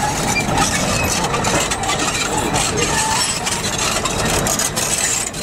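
Crawler bulldozer's diesel engine running steadily, with stones clattering as the blade pushes rock fill.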